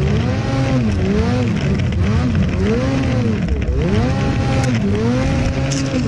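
Lynx snowmobile engine revving up and down in repeated throttle surges, about once a second, as the sled works through deep powder snow.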